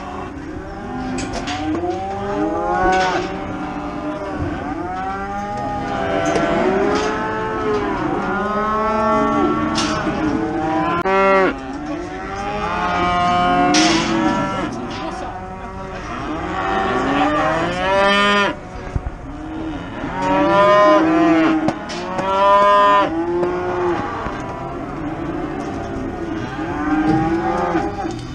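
Many cattle mooing at once in a crowded pen, their calls overlapping and rising and falling in pitch without a break. A few sharp knocks sound among them.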